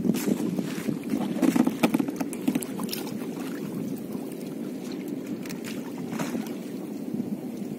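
Nylon gill net being worked loose by hand, with a few sharp rustles and clicks, mostly in the first three seconds, over a steady low rumble.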